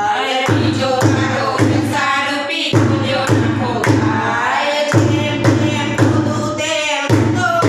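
A group of women singing a Gujarati devotional song to Bahuchar Maa together, clapping in time over a deep, steady beat of just under two strokes a second.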